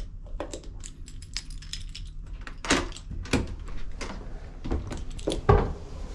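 Quick clicking and clattering of small hard objects, with three louder knocks in the second half, over a steady low rumble.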